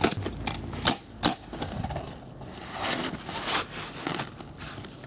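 Roofing work on a skylight: three sharp knocks in the first second and a half, then a stretch of scraping and rubbing.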